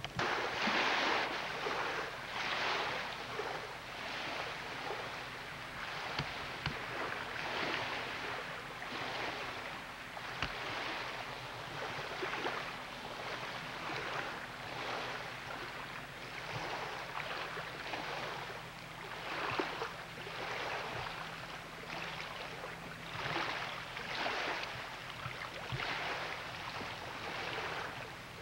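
Lake waves washing against the shore, a rushing hiss that surges and falls back every second or two.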